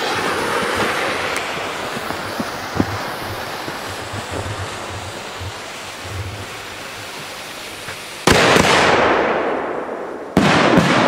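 Firework shells from steel mortar tubes: the hiss and rumble of a launch fading slowly, then two sudden loud blasts about eight and ten seconds in, each trailing off in a long echoing rumble, with a few small crackles after the second.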